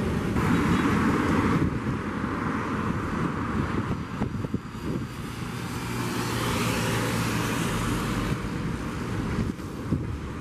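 Heavy diesel trucks pulling tarped bitrem grain trailers passing on a highway: engine running with tyre and road noise. About halfway through, another truck's engine holds a steady note as it goes by.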